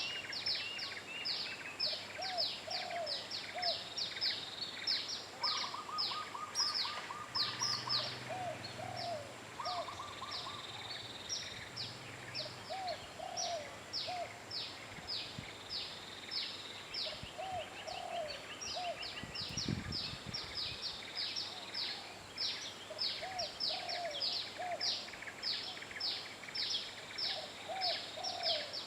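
Several wild birds calling together in tropical forest: a steady stream of quick, high, downward-sliding notes, a lower call repeated every few seconds, and now and then a short rapid trill.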